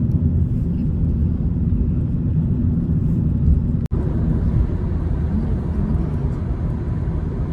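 Steady low rumbling noise, broken by a brief cut about four seconds in.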